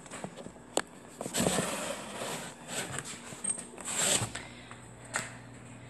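Handling noise from a phone being picked up and moved: rustling and rubbing, with a couple of sharp clicks.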